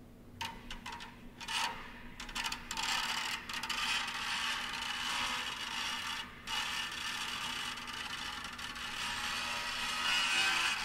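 Ratchet-like crackling and grinding noise, with nothing in the low range. It starts as scattered clicks and thickens about two seconds in into a dense, steady rasp, broken once by a brief gap about six seconds in.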